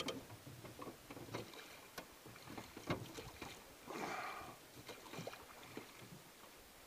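A single oar pulling through the water to swing a small jon boat around: soft splashes and swishes, the biggest about four seconds in, with scattered light knocks.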